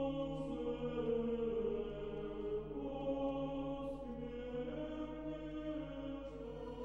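Quiet background music of choral chanting: long held chords that shift slowly in pitch.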